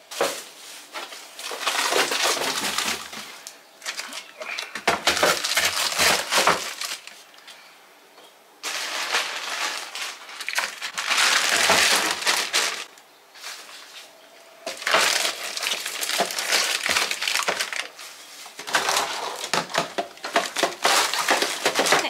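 Plastic packaging of frozen food crinkling and rustling in irregular bursts as packages are handled and pushed into a freezer drawer.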